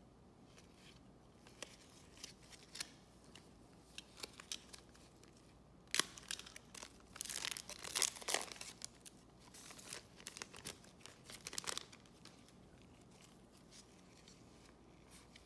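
A foil trading-card pack being torn open, its wrapper tearing and crinkling for several seconds, loudest about eight seconds in. Before that, light scattered clicks of cards being handled with gloved hands.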